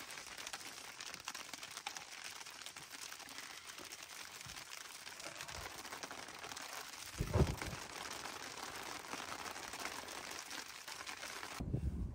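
Heavy rain mixed with hail pattering densely on a tent, with a single dull thump about seven seconds in. The patter cuts off abruptly near the end.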